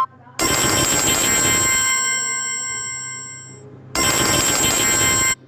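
A Samsung Galaxy A50s ringtone playing on the phone: a bright ringing tone starts about half a second in and fades, then rings again about four seconds in and cuts off abruptly just before the end.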